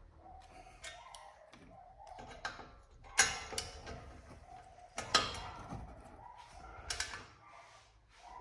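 Metal clicks and knocks of hand tools and parts being worked on a disc brake caliper, with three sharp knocks about two seconds apart among smaller clicking.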